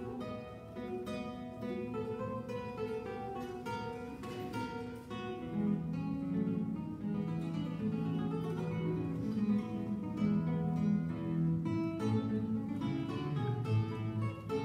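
Classical guitar playing a quick run of plucked notes, with held bass notes coming in more strongly from about six seconds in.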